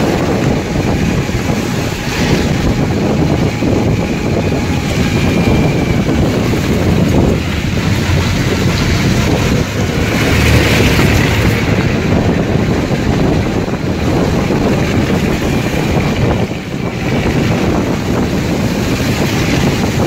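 Wind rushing over the microphone of a moving motor scooter, with the scooter's engine and road noise underneath: a loud, steady rush that dips briefly near the end.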